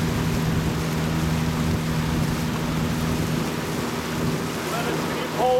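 Steady rush of wind and water with paddle splashes, under a low motor hum, as from a boat running alongside, that fades out about three and a half seconds in.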